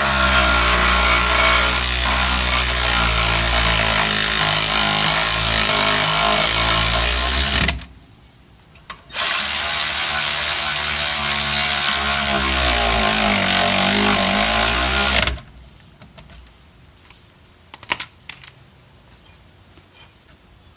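Handheld power tool running the two 14 mm caliper bracket bolts in: two long runs of the motor, about eight and six seconds, with a short break between them. Its pitch sags toward the end of the second run as the bolt tightens.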